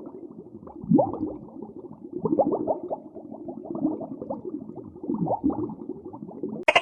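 An animal making a string of low growls and grunts, some calls sliding up or down in pitch, with a short burst of rapid clicks at the very end.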